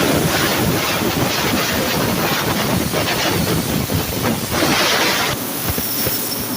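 CNC plasma cutting torch cutting metal: a steady, rough hissing noise with crackle, turning sharper and brighter for under a second about two thirds of the way through.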